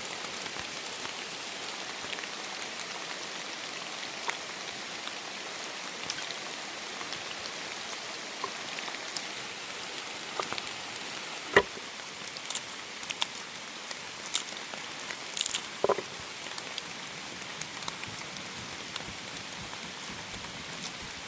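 Steady rain falling on the surroundings, a continuous patter, with scattered sharp taps and clicks. The loudest tap comes about halfway through, and a short cluster follows a few seconds later.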